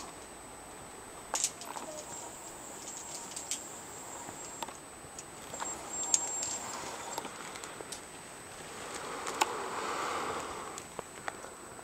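Scattered light clicks and ticks over a faint steady high hiss, with a soft swell of noise near the end.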